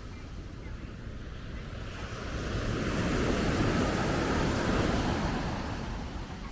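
Sea waves breaking on the beach: one wave swells up, crashes and washes out over a few seconds, with wind rumbling on the microphone.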